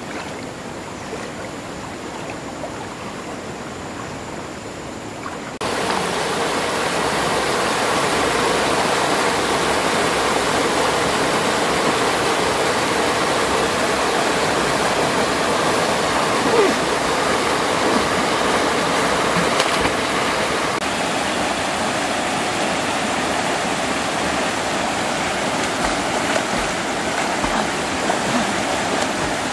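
Rushing water of a swollen, muddy stream: a steady hiss that jumps louder about six seconds in and holds there, with a small waterfall pouring into a pool.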